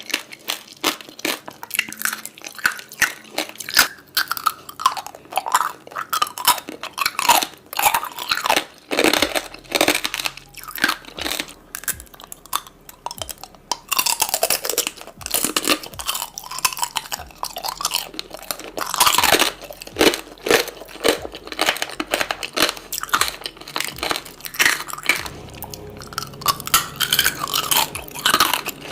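A person biting and chewing crisp fresh fruit, with many irregular crunches and wet chewing sounds.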